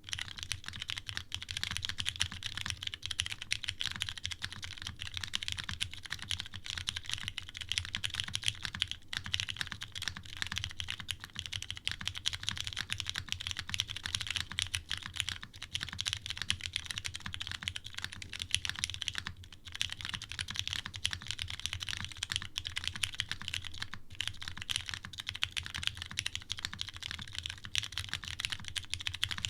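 Steady, fast typing on a TGR Jane V2 ME custom mechanical keyboard with lubed Cherry Hyperglide Brown tactile switches, an O-ring-mounted polycarbonate plate and GMK keycaps: dense, overlapping key clacks with a few brief pauses.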